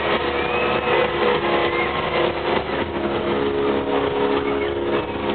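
Live pop-punk band playing loud through a club PA, overloaded and distorted on the camera's microphone, with sustained chords running steadily through.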